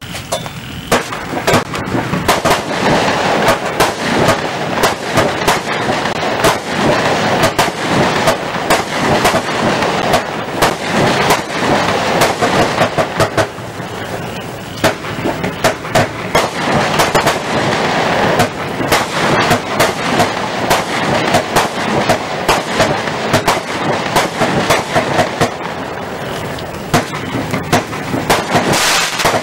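Lesli Essentials 'Screaming Spirits' 66-shot firework cake firing: a dense, unbroken string of shots and bangs.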